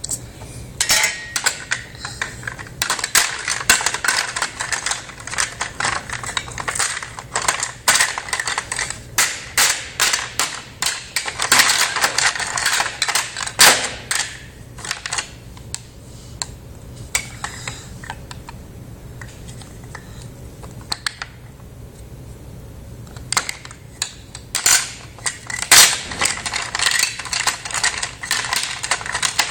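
Small plastic toy kitchen pieces and a toy pan clattering and clicking as they are handled. The sound comes in irregular flurries of sharp clicks, with a sparser stretch midway.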